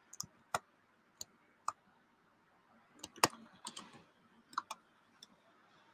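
Computer keyboard keys being typed: a dozen or so single sharp clicks at uneven intervals, the loudest a little past three seconds in.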